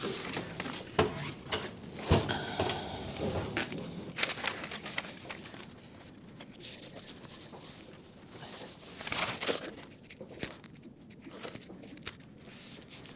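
Hands smoothing and pressing self-adhesive flashing tape onto house wrap along a window frame: rubbing, scraping and crinkling of tape and wrap, with a few sharp taps in the first couple of seconds.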